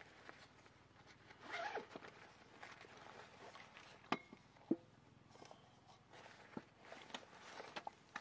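Camping gear being unpacked from a zippered pouch: the zipper and rustling cloth, then two sharp knocks a little after four seconds in as hard items are set down on the table.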